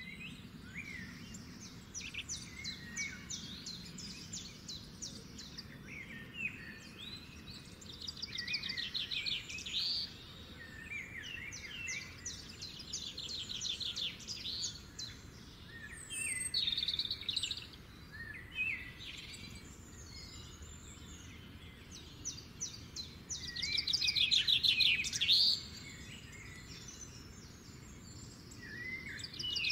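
Outdoor birds singing: repeated bursts of rapid trills and short chirps, the loudest trill about three-quarters of the way through, over a faint steady background hum.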